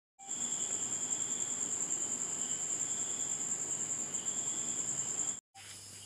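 Crickets chirping: a steady high-pitched trill that pulses evenly, briefly cut off near the end.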